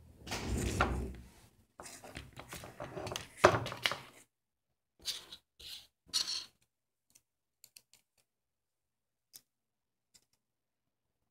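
Handling noise of small plastic camera parts and a circuit board being turned and rubbed in the hands: loud rustling and scraping for about four seconds, then three shorter scrapes, then a few faint light clicks.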